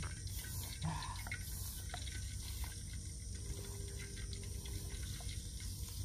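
Water dripping and trickling in small, scattered ticks over a steady low background hum.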